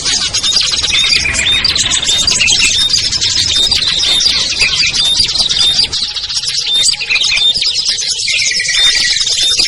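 Many small songbirds chirping and chattering at once in a dense, unbroken layer of quick high calls and short trills: a mixed small-bird lure (pikat) recording made to draw wild birds such as prinias and bulbuls down.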